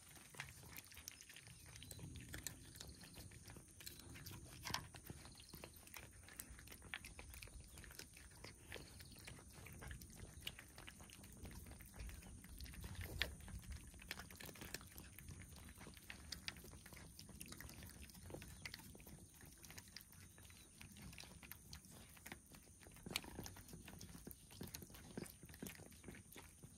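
Cats chewing and crunching their food: faint, irregular clicks and ticks that go on and off throughout.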